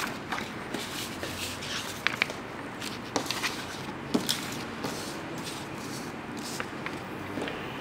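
Sheets of paper being handled and slid across a tabletop, with scattered rustles and a dozen or so short taps and clicks.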